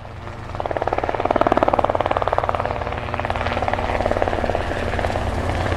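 Helicopter rotor blades chopping in a rapid, steady beat with an engine hum underneath, rising in over the first second.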